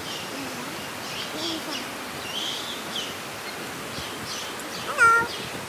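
Steady rushing of a mountain river running over rapids. About five seconds in comes one short, loud, high-pitched call.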